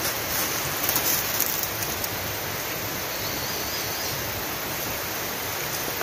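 Steady outdoor rushing hiss, even in level throughout, with a few faint taps in the first second and a half.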